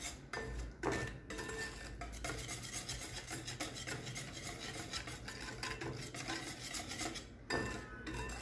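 Wire whisk beating a thin flour-and-milk yeast batter in a glass bowl: a quick, even rhythm of wet scraping strokes, the wires rubbing against the glass.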